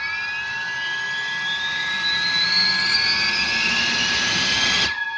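Four 70 mm electric ducted fans on a 6S battery spooling up, a smooth jet-like whine climbing steadily in pitch, then cutting off suddenly near the end.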